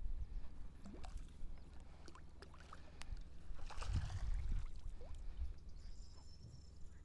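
Landing net swept through the pond water with a splash about four seconds in, as a crucian carp is scooped out, over a steady low rumble.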